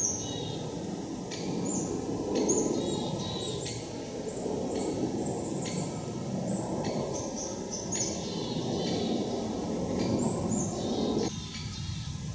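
Small forest birds calling with many short, high, slightly falling chirps, over a steady low noise that stops suddenly about 11 seconds in.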